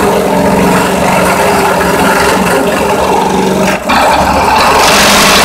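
Central Machinery 8-inch 5-speed bench drill press running, its motor humming steadily while the bit cuts a hole. About four seconds in the noise grows louder and harsher, then cuts off suddenly near the end.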